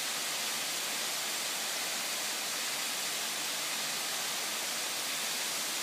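A tall waterfall at low flow, spilling in thin streams down a limestone cliff: a steady, even rush of falling water with little bass.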